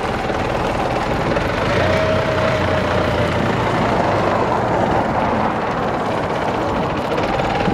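Desta forklift's engine running steadily as the truck drives slowly forward carrying a loaded pallet, with a whine that drifts up and down in pitch.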